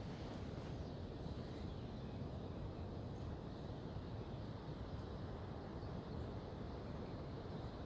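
Wind buffeting the microphone: a steady low rumbling noise with no distinct events.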